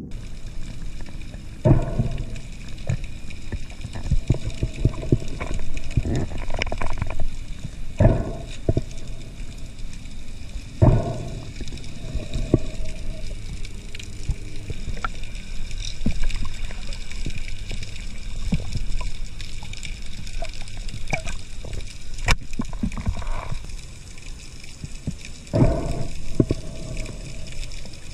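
Muffled underwater sound from a submerged action camera: water sloshing and gurgling around the housing, with a dull knock or surge every couple of seconds as the camera and the wader move, and one sharp click about two thirds of the way through.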